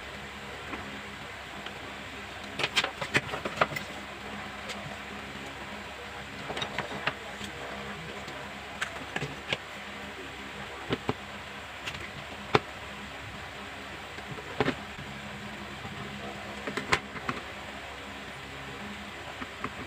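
Scattered light clicks and taps, some in quick little clusters, over a steady hiss.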